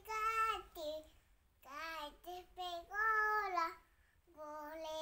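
A young girl singing a children's song in short, high-pitched phrases with brief pauses between them.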